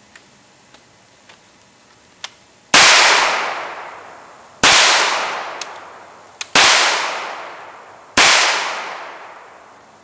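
Four handgun shots fired about two seconds apart, each sharp report trailing off in a long echo. A few faint clicks come before the first shot.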